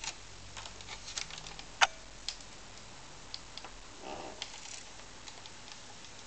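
Irregular light clicks and taps of a screwdriver and plastic case parts as a laptop is being taken apart, with one sharper click about two seconds in and a brief rustle a little past the middle.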